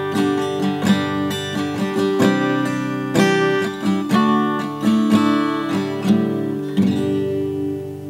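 Background music of acoustic guitar, chords strummed and plucked about once a second.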